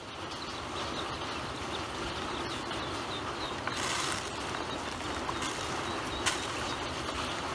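Ducklings peeping faintly over a steady background hiss. Grain feed is scattered into a plastic basin twice, about four and five and a half seconds in, each time as a short rattling burst, and there is a sharp tick just after.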